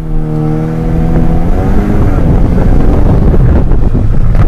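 Volkswagen Golf Mk6 R's turbocharged 2.0-litre four-cylinder pulling at full throttle off a launch-control start, heard from inside the cabin, without wheelspin. Its engine note is clear for about the first second and a half, then a heavy rumble of engine, road and wind takes over.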